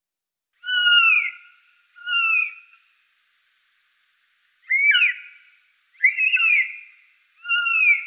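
Blue jay giving a series of clear, whistled calls: five short, mostly falling notes with pauses between them.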